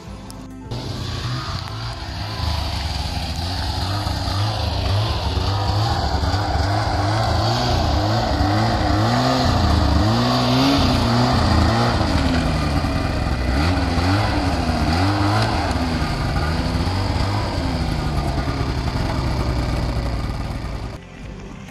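Ski-Doo snowmobile engine running and revving as the sled is driven up a loading ramp into a pickup truck bed, its pitch rising and falling with the throttle. It starts about a second in and drops away near the end.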